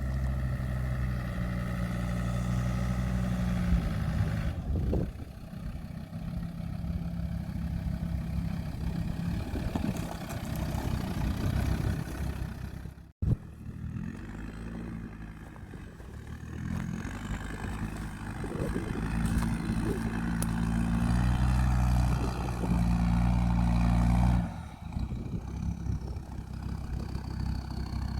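Land Rover Discovery 2 Td5's five-cylinder turbodiesel engine working off-road, the revs rising and falling as it pulls. The sound breaks off for an instant about halfway, and drops back to a lower, steadier note near the end.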